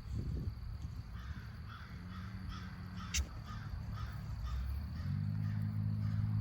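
Animal calls: short, repeated calls a few times a second, over a low steady drone that gets louder about five seconds in.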